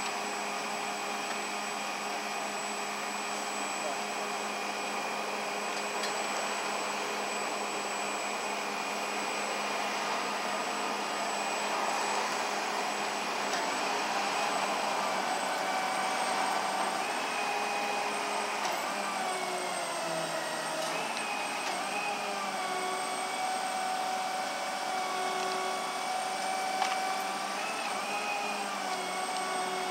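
A motor-driven machine running steadily with a hiss and a whine; about halfway through, its whine shifts down and up in pitch in small steps.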